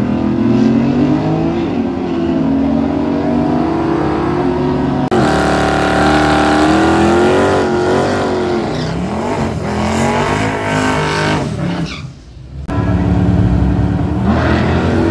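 Drag racing car engines revving hard and accelerating, their pitch climbing and falling again several times. There is an abrupt change in the sound about five seconds in and a brief drop in level about twelve seconds in, after which a loud engine picks up again.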